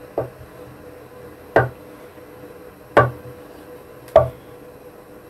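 Kitchen knife slicing down through a block of tofu and knocking on a wooden cutting board: four single chops, roughly one every second and a half.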